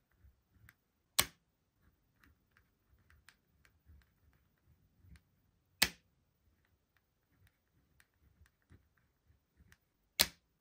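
A pen writing on a paper chart, with faint scratches and small taps, broken by three sharp, loud clicks about four and a half seconds apart.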